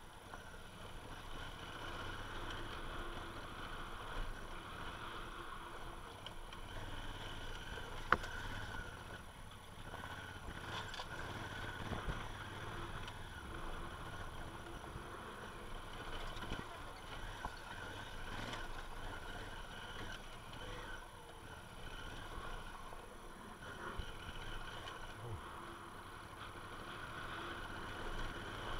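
Honda Africa Twin motorcycle riding over a rough, rocky dirt track: the engine running under a steady noise of wind and tyres on gravel. Occasional sharp knocks, the loudest about eight seconds in.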